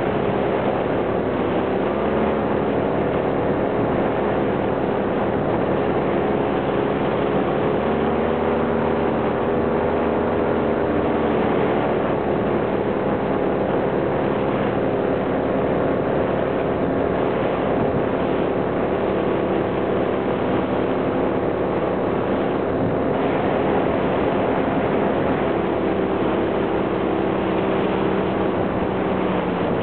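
Motor and propeller of a small aircraft heard from a camera mounted on it: a steady drone whose pitch drifts slowly up and down, over wind rushing on the microphone.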